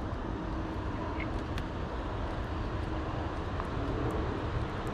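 Steady low background rumble of distant engine noise, swelling slightly about four seconds in.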